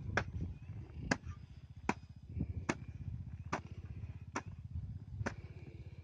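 Broad-bladed digging hoe chopping into clods of soil, seven sharp strikes a little under a second apart, over a steady low rumble.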